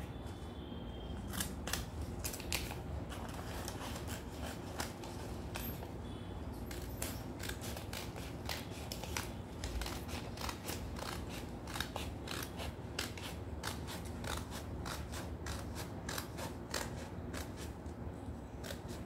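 Scissors cutting coloured chart paper into strips: a long run of repeated snips through the sheet.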